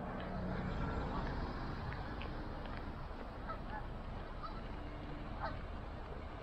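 Geese honking in short, scattered calls over a steady low background rumble.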